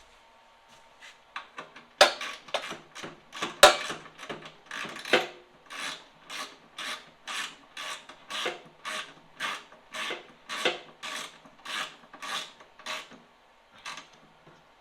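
Hand ratchet wrench working a bolt, its pawl clicking in a short rasping burst on each back-swing, about two strokes a second for some ten seconds. Two sharp knocks come near the start.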